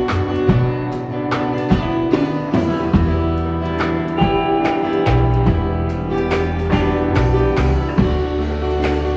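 Live band playing an instrumental passage: guitar over bass guitar and a drum kit keeping a steady beat, with no singing.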